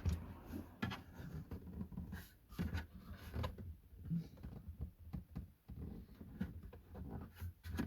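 Irregular knocks, clicks and scrapes of hard plastic as a car's dashboard trim is pulled and prised at to get it off.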